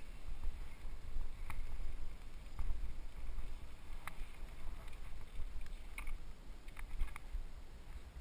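Specialized FSR Pro full-suspension mountain bike rolling along a dirt singletrack, heard from a helmet-mounted GoPro HD: a steady low rumble with a few light clicks and rattles at uneven intervals as the bike goes over the trail.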